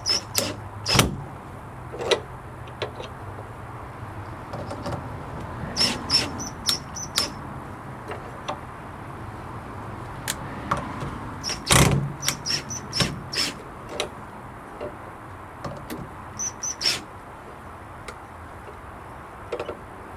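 Scattered clicks and metallic clinks in short clusters, from metal hasp latch hardware being handled and fitted to a wooden gate, over a faint steady low hum.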